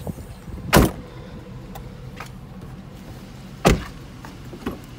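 Two car doors of a 2004 GMC Yukon Denali slamming shut about three seconds apart, followed by a lighter click near the end.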